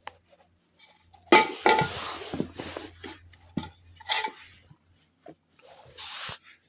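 Hard plastic hockey cups being handled: a series of knocks, clicks and scraping rubs as they are moved and set against each other, loudest a little over a second in and again near the end.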